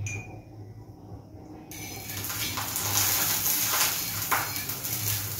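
Oil sizzling under a chapati on a hot pan, an even hiss that starts suddenly about two seconds in and keeps going, with a few light clicks over it.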